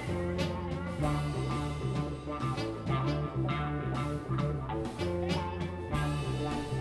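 Live blues-rock band playing an instrumental passage: electric guitars, bass guitar and drum kit, with saxophone, and a steady beat under a moving bass line.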